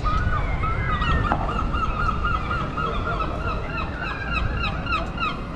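Gull calling overhead: a long run of short, repeated honking calls, about four a second, over low street noise.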